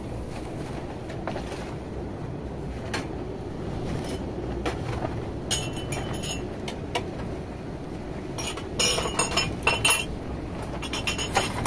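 Strong storm wind rumbling steadily, with bursts of sharp clinking and rattling about halfway through and again near the end.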